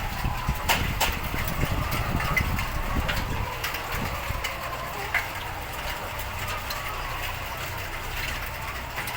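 A steady low mechanical rumble, like an engine idling, with scattered sharp clicks over it.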